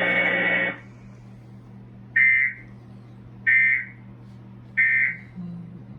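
Emergency Alert System end-of-message code: three short, shrill digital data bursts about 1.3 seconds apart, the tones that close a test tornado warning broadcast. Before them, a loud hiss cuts off suddenly under a second in.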